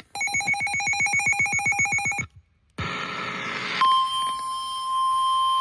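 A weather radio sounds an alert. For about two seconds there is a rapidly pulsing electronic tone, roughly ten pulses a second. After a short break comes a second of radio static, and then the steady single-pitch NOAA Weather Radio warning alarm tone (about 1050 Hz) starts and holds.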